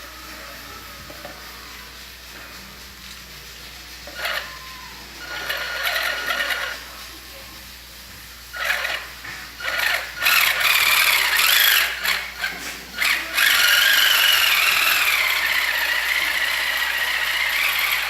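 Small electric motor and gearing of a homemade RC truck running in short stop-start bursts, then a longer run of several seconds. The whine wavers in pitch and sags slightly toward the end.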